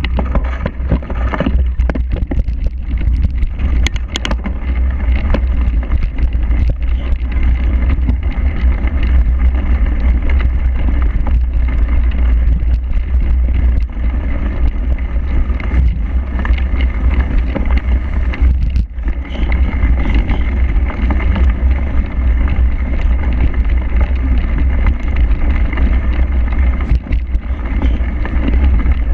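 Steady low wind rumble on an action camera's microphone as a cyclocross bike is ridden fast over bumpy grass and mud, with occasional knocks and rattles from the bike.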